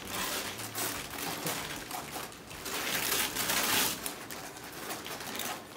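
Gift wrapping paper being torn and crinkled as presents are unwrapped, in a run of irregular rustling bursts, the longest and loudest about three seconds in.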